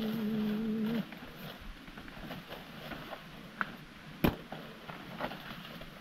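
Dry maize plants rustling, with scattered sharp snaps and knocks as cobs are broken off the stalks; the sharpest comes about four seconds in. A low held note, steady in pitch, sounds for about the first second and then stops.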